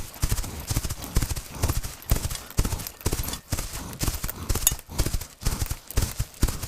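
Horse hooves clip-clopping in a quick, steady rhythm, about three to four hoofbeats a second.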